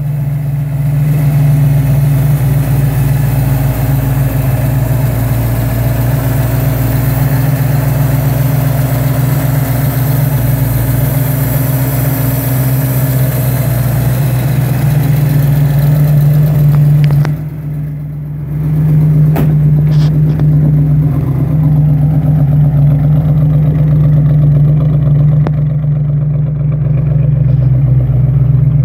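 Engine of a 1956 Ford F-100 pickup idling steadily with the hood open, dipping briefly a little past the middle.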